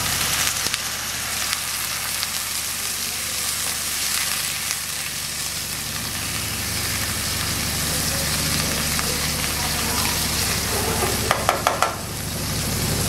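Onions, capsicum and dried chillies sizzling and bubbling in a wok with water just added to the hot oil, stirred with a silicone spatula. A quick run of about four taps comes near the end, over a low steady hum.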